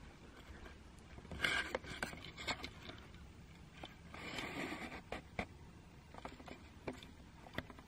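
Faint rustling and scraping of a handheld camera being moved over bedding, with a few sharp clicks and knocks.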